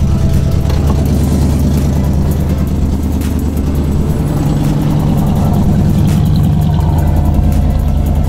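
1992 Pontiac Trans Am GTA's 5.0 V8 idling steadily, heard from its dual exhaust tips; the low note strengthens about four seconds in.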